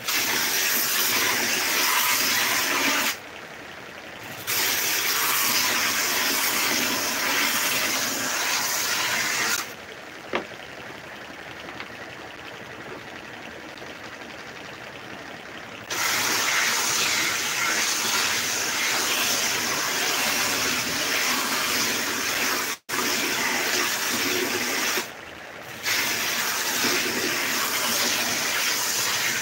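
Homemade belt sander grinding wooden pieces pressed against its abrasive belt: a loud, steady rasping hiss. It drops to a quieter running sound in the pauses between passes, briefly a few seconds in, for several seconds around the middle, and again near the end.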